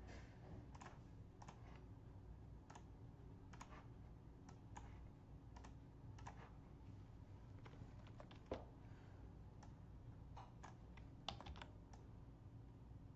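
Faint, irregular clicking of a computer mouse and keys over a low steady hum, with two sharper clicks about eight and a half and eleven seconds in.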